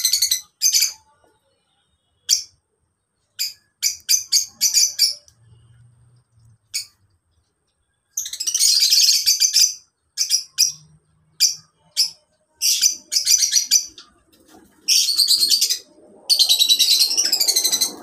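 A flock of lovebirds calling: shrill, high chirps, some single and some in rapid chattering runs of a second or two, loudest about eight seconds in and again near the end.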